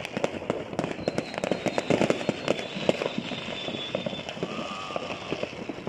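Many fireworks going off at once: a dense, unbroken run of overlapping pops and bangs with crackle, none standing out above the rest.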